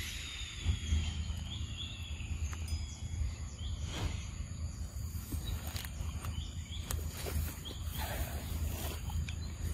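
Outdoor ambience: a steady high insect drone over a constant low rumble, with a few scattered short clicks and rustles.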